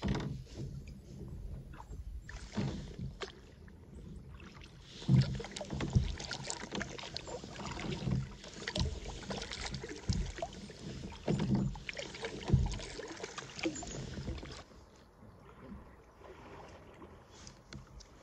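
Kayak paddle blades dipping and splashing in calm river water, stroke after stroke, about one a second. The strokes turn quieter for the last few seconds.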